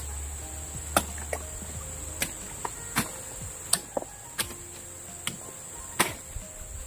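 About ten sharp, irregularly spaced clicks and knocks from hands working with small objects, over a steady high-pitched insect drone.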